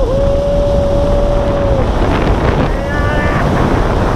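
Loud, steady wind noise buffeting the microphone in skydiving freefall. A long held yell rides over it for the first couple of seconds, and a shorter one comes about three seconds in.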